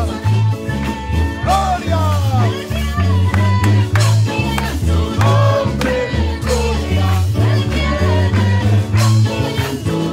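Upbeat Pentecostal 'coros de fuego' worship chorus played live: a woman sings lead into a microphone over drums and electric bass and guitar with a steady, quick beat, and the congregation claps along.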